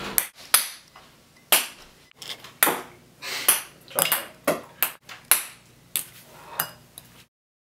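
Ping-pong balls bouncing, a dozen or so sharp pings in an irregular run.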